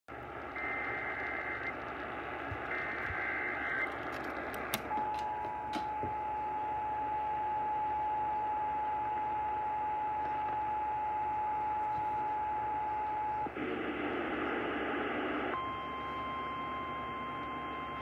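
AM radio receiving an Emergency Alert System broadcast over steady static hiss: two short warbling data bursts of the EAS header, then the two-tone EAS attention signal held for about eight seconds. A brief burst of static follows, and then a single steady tone that runs until the spoken warning.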